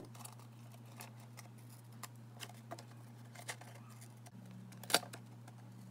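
Scissors snipping through watercolour-painted paper: faint, irregular crisp snips, with one sharper snip near five seconds in, over a steady low hum.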